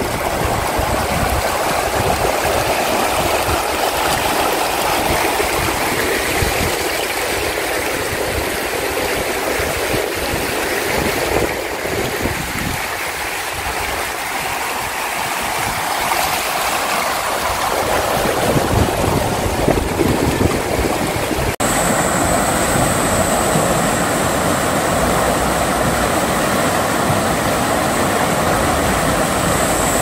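Shallow rocky mountain stream running over stones: a steady rush of water. After a sudden cut about two-thirds of the way in, a steady high-pitched whine sits above the water.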